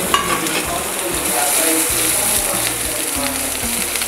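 Chopped garlic, green chilli and grated ginger sizzling in hot mustard oil in a nonstick kadhai, stirred with a wooden spatula. The aromatics are being lightly fried until the garlic turns light pink.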